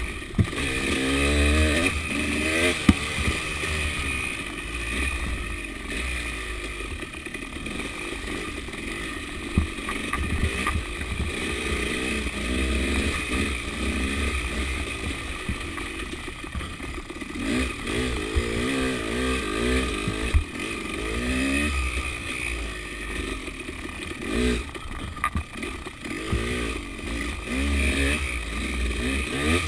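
KTM 300 two-stroke enduro motorcycle engine revving up and down over and over as it is ridden on and off the throttle along a rough trail. A few sharp knocks come through at times.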